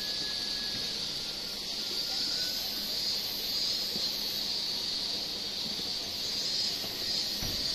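Steady high-pitched drone of insects over a low wash of outdoor background noise, with a soft low bump near the end.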